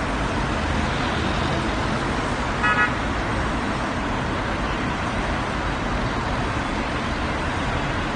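Steady road traffic noise from passing cars, with one short car horn toot about two and a half seconds in.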